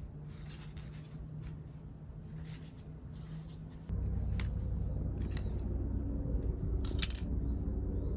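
Pruning shears snipping lavender stems, a few sharp separate snips, over a low steady hum that gets clearly louder about four seconds in.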